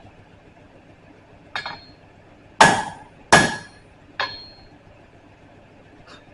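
Four hammer blows on steel, the middle two the loudest, each leaving a short metallic ring.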